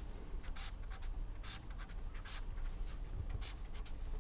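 A pen scratching in short strokes as someone writes or sketches, about five strokes spread over the few seconds, over a low steady hum.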